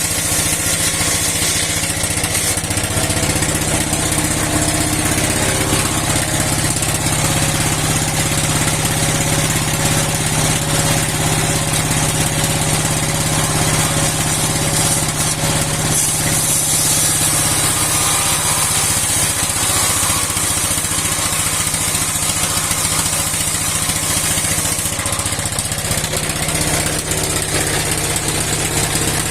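Old stationary engine, about sixty years old, running steadily at a constant speed to drive a steel sawmill blade.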